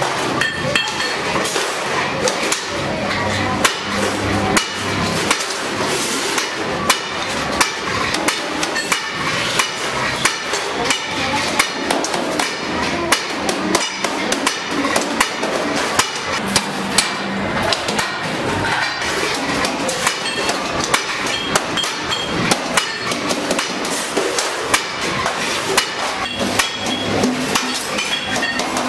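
Sheet-metal work on stainless steel: sharp metallic clicks and knocks in quick, irregular succession.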